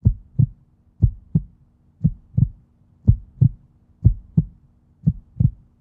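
Heartbeat sound effect: a pair of low thumps (lub-dub) about once a second, steady and even, over a faint steady hum.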